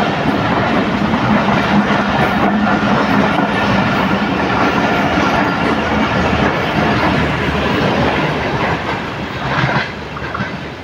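Passenger express train's coaches passing at speed on the adjacent line: a loud, steady noise of wheels on rails with a low hum. It drops away about ten seconds in as the last coach goes by.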